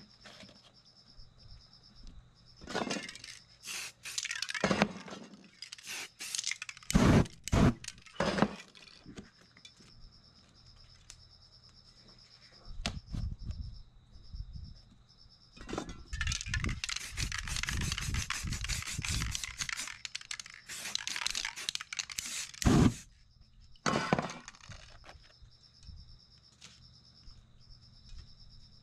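Stiff paper stencil sheets being handled and laid on a board: a series of sharp rustles, crackles and scrapes, with a longer stretch of continuous rustling and rubbing about two-thirds of the way through.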